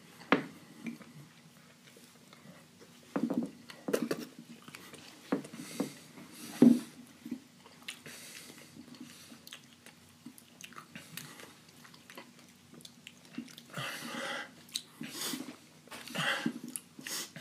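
Two people chewing and crunching whole dried ghost peppers, with scattered mouth clicks and a few short, noisy breaths.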